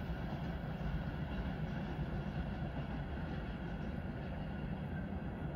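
Low, steady rumble of a passenger train's coaches rolling along the rails.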